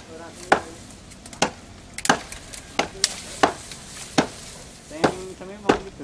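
Chopping strikes on wood, about ten sharp blows spaced irregularly, roughly one or two a second.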